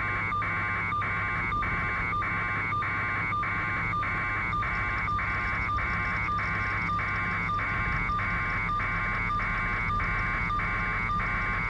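Steady drone of helicopter cabin noise over the aircraft's audio feed, with a harsh buzz that pulses evenly about three times a second over a steady high tone.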